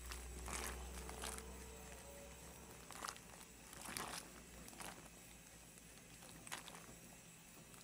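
Split-pea dhal boiling and bubbling in a pot while it is swizzled with a wooden stick: faint, with a few scattered soft pops and splashes.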